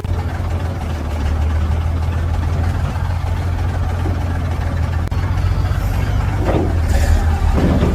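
Heavy truck engine running steadily with a deep low hum, with two short higher-pitched sounds near the end.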